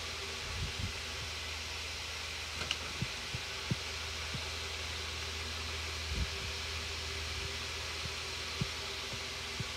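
Steady hiss and low hum from the tablet's microphone, with about ten soft low thumps scattered through it, from the tablet being tapped and handled while drawing.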